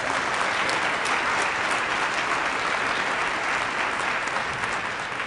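Audience applauding: dense, steady clapping from a large crowd that eases off near the end.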